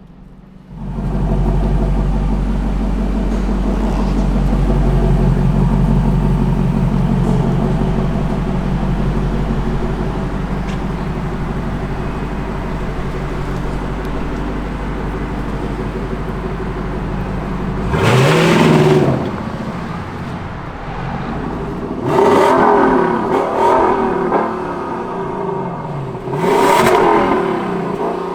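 Lexus LC 500's naturally aspirated 5-litre V8 starting about a second in and running at a fast idle that slowly settles. Several short throttle blips follow in the last ten seconds, each rev rising and falling quickly.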